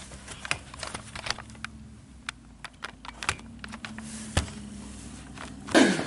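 Scattered light clicks and taps of a desktop PC tower and its metal case being handled, over a faint steady hum. A louder clatter comes near the end.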